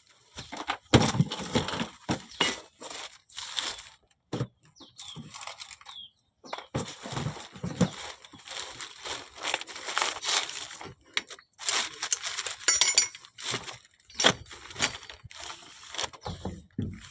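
Irregular clinks, knocks and scraping of hand tools and metal parts being handled during work on a van's front suspension, with short pauses between bouts.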